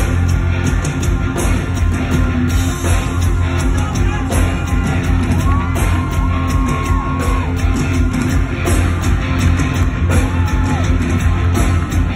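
A live rock band playing loud, heard from within the crowd, with electric guitar and a heavy steady bass. A voice holds a long note about halfway through and again briefly near the end.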